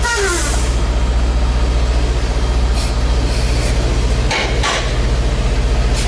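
Diesel engine of a Volvo VNL860 semi truck running steadily, heard inside the cab, with two short sharp sounds a fraction of a second apart about four seconds in.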